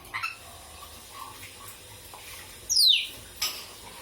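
A pet talking bird gives one sharp whistle that falls steeply in pitch, about three quarters of the way in, after a few short, softer calls.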